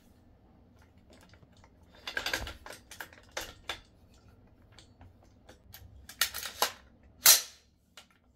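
AR-15-style rifle being handled and put back together: scattered clicks and clacks of its receiver parts, in small groups, with a sharp snap near the end.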